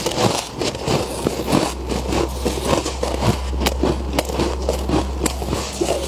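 Packed freezer frost crunching and crackling in many quick, irregular crunches as it is scooped, squeezed in gloved hands and chewed. A steady low hum comes in about two seconds in.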